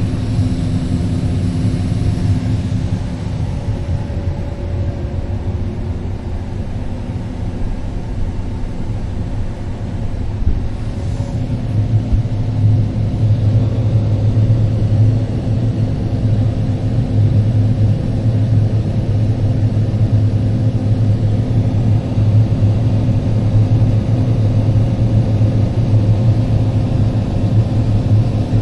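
Heavy farm vehicle's engine running steadily, a low drone that grows stronger about 11 seconds in.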